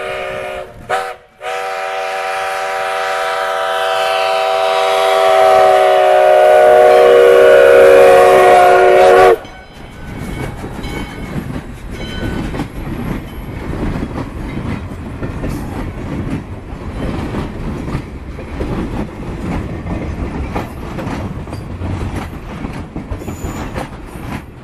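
A steam locomotive whistle blows a chord: a brief break and a short toot about a second in, then a long blast that grows louder as the engine nears and cuts off sharply about nine seconds in. After that, a string of loaded sugar cane cars rolls past with an uneven clicking and clanking of wheels over the rail joints.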